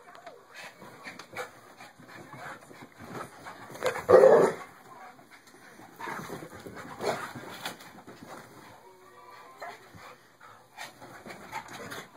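A dog's aggressive vocalising as a small dog faces down a large pit bull, loudest about four seconds in, with shorter outbursts a couple of seconds later.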